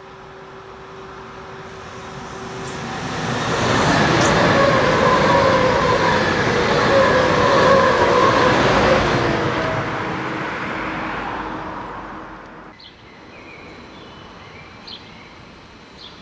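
ICE high-speed electric train passing at speed: a rush of wheel and air noise that builds to a peak about four seconds in, with whines from the traction equipment falling in pitch as it goes by, then fading away. Near the end the sound drops suddenly to quiet outdoor background with a few short bird chirps.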